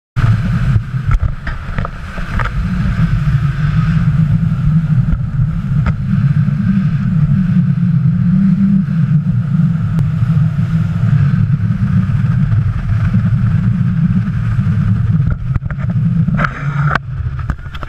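Center-console boat running fast on open sea: the outboard motor's steady drone mixed with wind buffeting the microphone and rushing water from the hull and wake.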